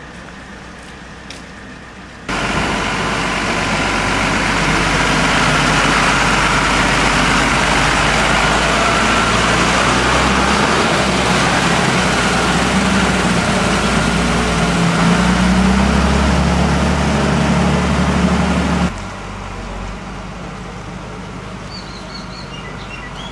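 Heavy armoured vehicle's engine running loud and close, its pitch rising as it revs toward the end. The sound starts suddenly about two seconds in and cuts off sharply after about seventeen seconds. It is followed by quieter street background with a few faint bird chirps near the end.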